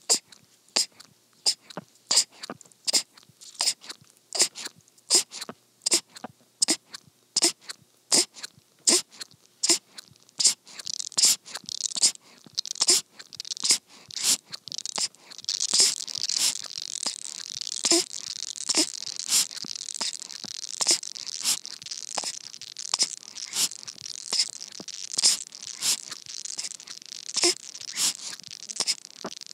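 Newborn baby sucking and swallowing milk from a baby bottle, making short wet clicks at a regular rate of about two a second. From about halfway a steady high hiss joins the clicks.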